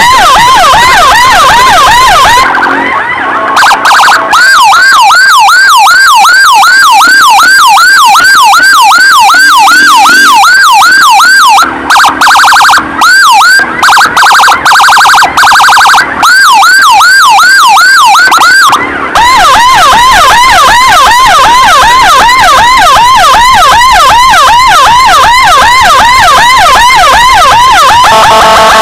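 Loud electronic emergency siren of an ambulance escort in a traffic jam, yelping in quick rising sweeps several times a second. It switches to a faster, choppier tone with brief cut-outs about twelve seconds in, then goes back to the yelp about seven seconds later.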